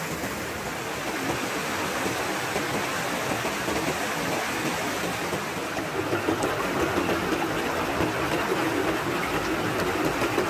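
Rushing water of a shallow rocky stream, white water tumbling over stones in a steady rush that grows a little louder about six seconds in.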